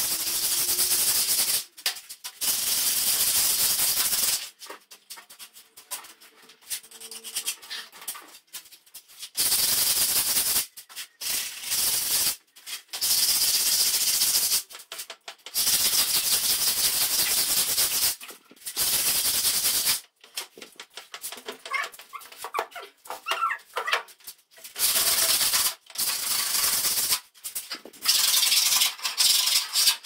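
Scratchy hiss in repeated bursts of one to three seconds, with short pauses between, from hand work on a bare concrete wall.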